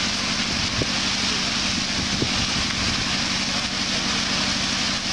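Garden fountain running: frothy water jets from the nozzles and a sheet waterfall splashing steadily into a shallow pool.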